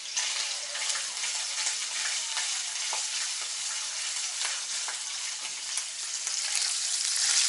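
Diced internal pork fat sizzling steadily in a frying pan, with scattered sharp crackles, while it is stirred with a silicone spatula.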